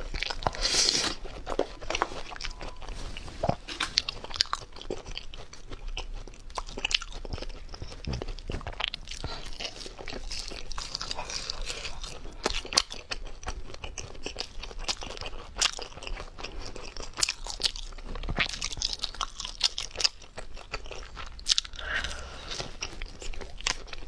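A person biting into and chewing crunchy skewered spicy food close to a clip-on microphone: a steady run of crisp crunches throughout, louder about a second in and again late on.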